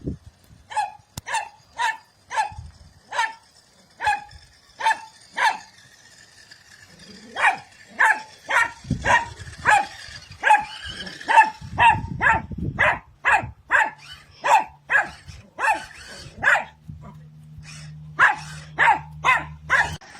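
Dog barking over and over, about two barks a second, with a pause of a couple of seconds about five seconds in before the barking resumes.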